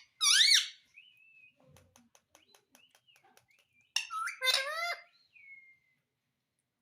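Pet parrot giving two loud bursts of rapid warbling, up-and-down sweeping calls, one at the start and one about four seconds in. In between come faint clicks and a few soft, short whistles.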